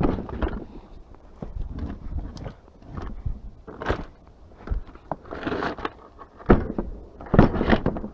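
Irregular knocks, thuds and rustling of objects being handled and moved about, with the loudest bumps near the end.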